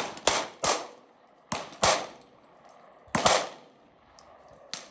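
Gunfire: a string of sharp shots, several in quick pairs about a third of a second apart, each with a short echoing tail.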